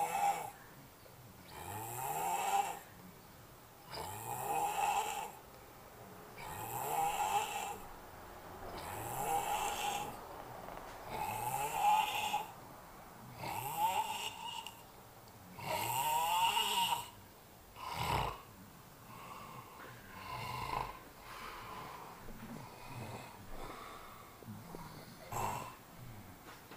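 Snoring in a steady rhythm, one long snore about every two seconds, eight in a row. After a short sharp snort-like sound about eighteen seconds in, the snores turn softer, shorter and less regular.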